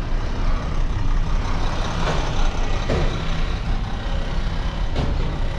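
Truck engine running steadily with a low rumble and a haze of noise.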